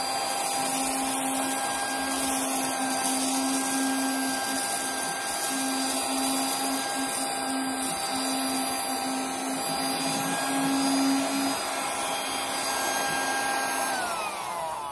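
Wrapables cat-shaped cordless mini tabletop vacuum, running on two AA batteries, sucking up diamond painting drills with a steady, loud motor whine. Near the end it is switched off and the whine falls in pitch as the motor winds down.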